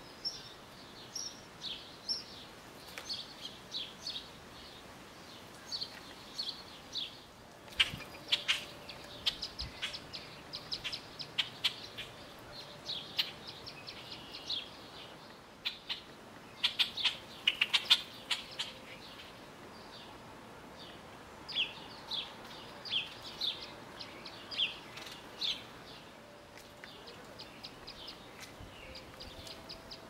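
Small songbirds chirping: a steady scatter of short, high call notes, several a second at times. Sharp clicks come in among them, loudest about a quarter of the way in and in a cluster just past the middle.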